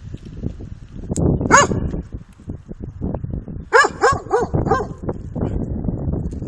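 A dog barking: a single bark, then a quick run of four barks about two seconds later.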